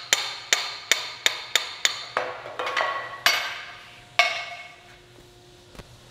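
Hammer tapping a steel punch to drive a wooden axe handle out of the axe head's eye: about ten quick, light metallic taps, roughly three a second, each ringing briefly. The tapping stops after about three seconds, followed by one louder knock a little after four seconds in.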